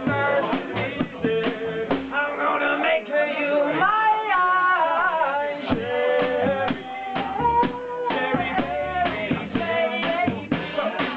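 Live funk band playing: upright double bass and drum kit keep a steady beat under a gliding lead melody. The bass and low drums drop out for a couple of seconds about three seconds in, then come back.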